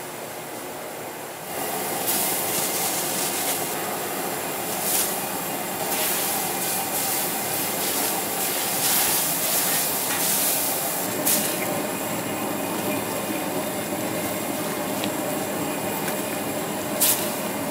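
Noodles cooking in broth in a large steel wok, stirred with long chopsticks: a steady rushing hiss of the steaming wok, louder from about a second and a half in, with a few sharp clicks of the chopsticks against the wok.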